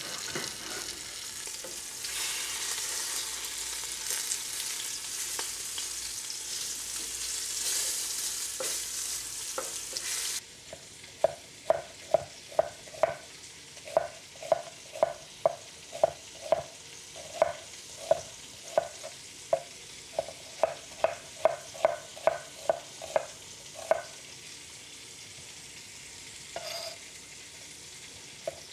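Short ribs searing in oil in a pot: a steady sizzle. About ten seconds in it changes abruptly to a knife chopping vegetables on a cutting board, sharp knocks about two a second, which stop for a few seconds near the end.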